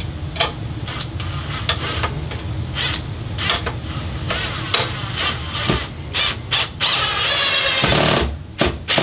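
Cordless drill driving screws into the fan housing in short bursts, its motor whining high, amid sharp clicks and knocks of metal parts. About seven seconds in comes one longer, louder run of the tool.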